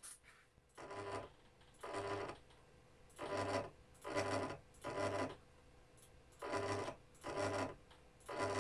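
Stepper motor driving the Z-axis of a homemade Arduino-based CNC router in short test moves: about eight brief buzzing bursts with pauses between. The axis is being run to show a positioning problem.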